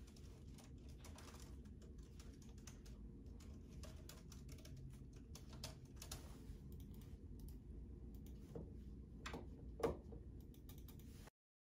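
Gloved fingers typing on a Man & Machine Very Cool Keyboard, a sealed, washable keyboard: a quiet, steady run of key presses, with one louder click near the end.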